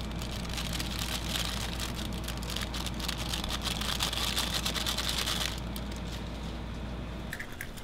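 Pot of Jjawang instant noodles boiling, the water bubbling and crackling in a steady hiss that eases about five and a half seconds in.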